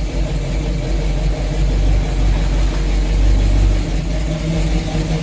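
Cammed stroker V8 truck engine running at low speed, steady with small swells in level.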